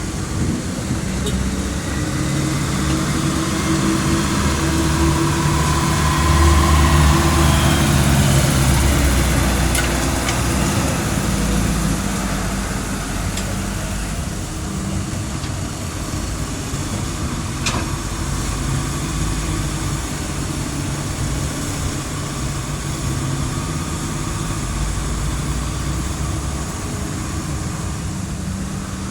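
Heavy truck engine running, swelling louder for a few seconds early on and then settling back to a steady drone.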